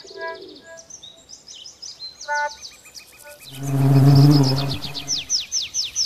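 Birds chirping in quick, repeated downward-sweeping calls, with a few soft music notes early on; about halfway through, a low sustained pitched tone swells and fades over a second and a half and is the loudest sound.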